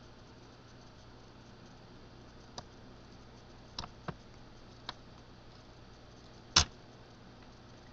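A few separate light clicks and taps of hands and a small tool on a laptop's plastic screen bezel, with one louder knock about two-thirds of the way through.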